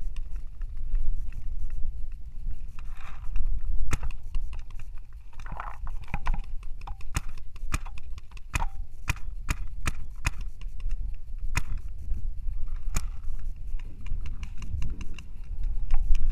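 Paintball markers firing: about fifteen sharp pops, spread unevenly through the middle of the clip, over a steady low rumble of wind on the microphone.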